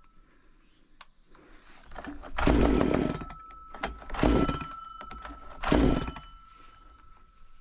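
STIHL MS 194 TC two-stroke top-handle chainsaw being pull-started three times, each short yank of the recoil starter cord turning the engine over without it starting.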